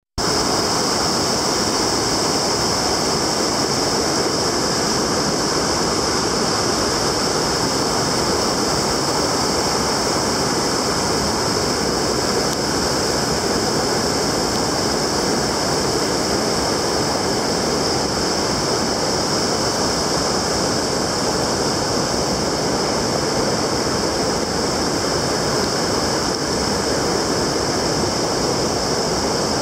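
A rocky river rushing steadily over boulders and small rapids, with a constant high hiss over the water noise.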